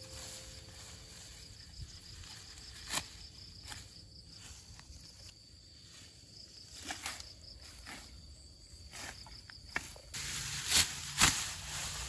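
Crickets chirring steadily while a hand sickle cuts through clumps of tall grass, the blade snapping through the stems with occasional sharp strokes. Near the end the chirring stops and two louder cutting strokes come close together.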